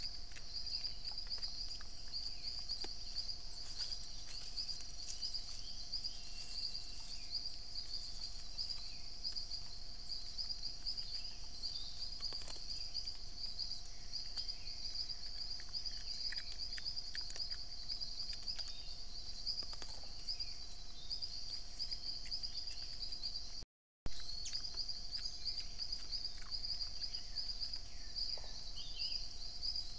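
Dense insect chorus of crickets or cicadas, a steady high-pitched buzz, over a fainter, lower steady hum, with scattered faint bird chirps and small ticks. The sound drops out for a moment about three-quarters through, where two trail-camera clips are joined.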